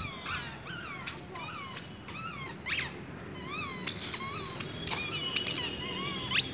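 Toddler's squeaker sandals squeaking with each step, a short chirping squeak two or three times a second.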